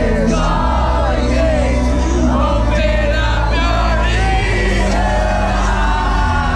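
Loud live music from a festival stage, with long held bass notes, and voices in the crowd singing and shouting over it.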